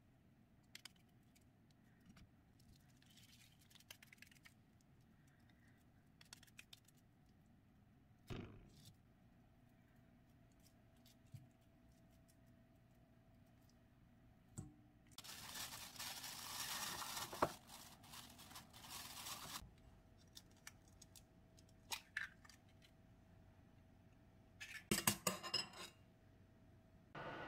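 Quiet, scattered soft sounds of hands working a raw ground-meat mixture into patties. Midway a steady rushing noise runs for about four seconds and is the loudest part. Near the end a thin metal whisk beats eggs in a ceramic bowl in a quick run of clinks.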